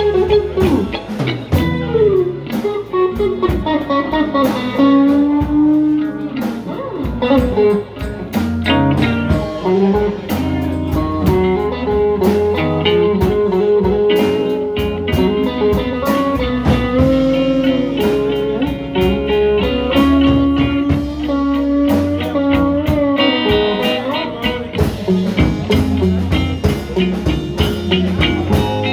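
Slow electric blues guitar solo with string bends, over bass and drums.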